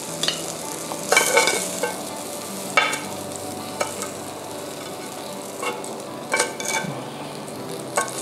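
Metal tongs scraping and clinking against a ridged grill pan and a ceramic plate as grilled vegetables are lifted off. About a dozen short clicks, some with a brief metallic ring, over a steady low hiss.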